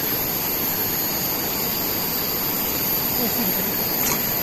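Steady rush of a fast-flowing river, an even noise with no change throughout.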